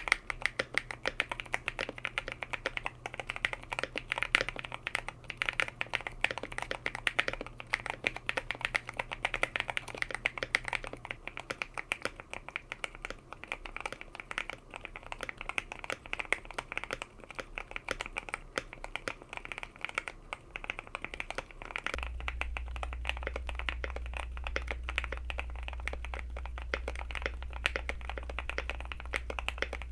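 Continuous fast typing on an Epomaker TK68, a stacked-acrylic, gasket-mounted mechanical keyboard: a dense stream of key clacks. A faint low hum runs underneath and deepens about two-thirds of the way in.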